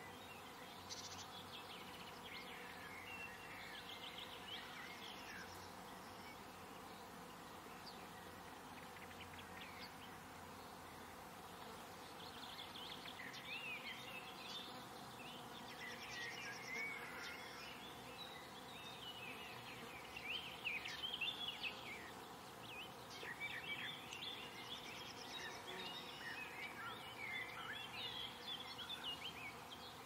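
Faint outdoor garden ambience of small birds chirping and twittering in bursts, over a steady background hum.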